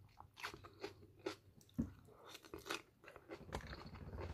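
A person chewing a mouthful of beef and broccoli, with irregular crunches about two a second.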